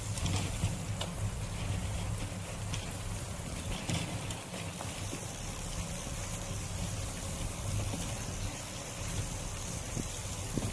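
Wind buffeting the microphone of a camera moving along with a bicycle ride, a steady low rumble, with a few light clicks.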